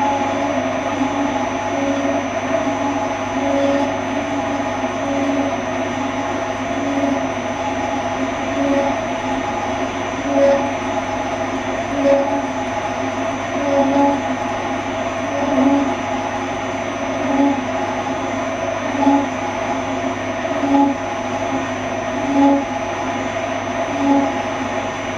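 Kearns horizontal boring and facing machine running, its facing head swinging a cutter around the stator housing's outer diameter: a steady machine hum that swells regularly about every 1.7 seconds. The cut has a bit of chatter, which the machinist hopes to adjust out.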